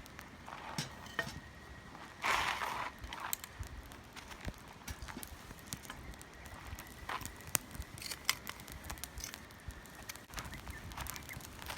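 Wood fire crackling in a camp fire pit: irregular sharp snaps and pops, with a louder brief hissing burst about two seconds in.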